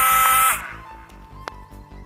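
Small electric motor of an RC toy car whining steadily, then cutting off suddenly about half a second in. Background music with a steady low beat continues underneath.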